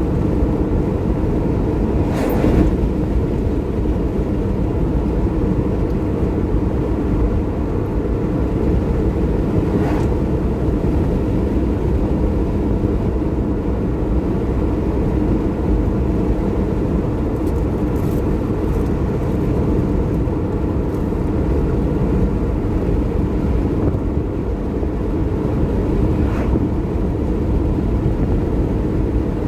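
Steady road and engine noise heard inside a car cruising on a paved highway, mostly low-pitched, with a few faint short clicks.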